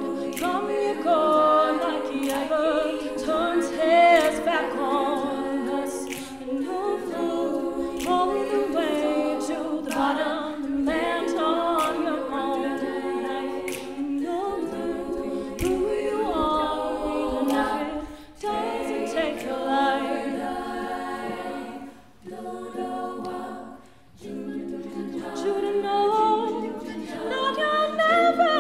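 Women's a cappella group singing in harmony, a lead voice over wordless backing parts, with sharp clicks from the singers' hands. The singing breaks off briefly a few times in the second half.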